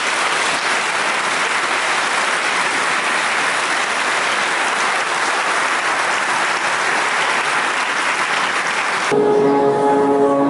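A crowd applauding, steady dense clapping, which cuts off abruptly about nine seconds in and gives way to music with long held notes.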